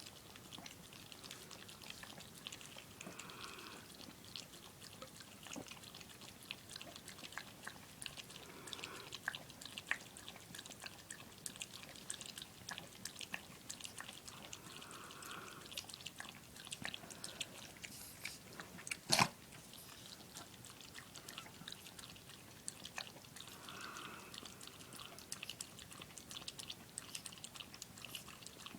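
Dog lapping and licking soda, a faint run of many small wet clicks, with one sharp knock about two-thirds of the way through.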